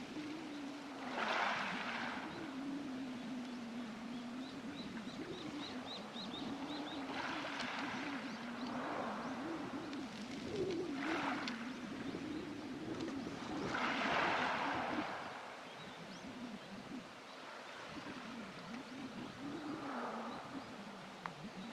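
Waves surging up and drawing back over a pebble beach, each wash a hiss that swells and fades every few seconds. Underneath runs a steady low hum that wavers slightly in pitch.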